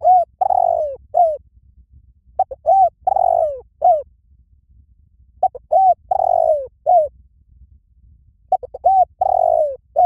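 Spotted dove cooing. It repeats a short phrase about every three seconds, four times: a quick lead-in note, a longer coo that falls in pitch, and a short closing note.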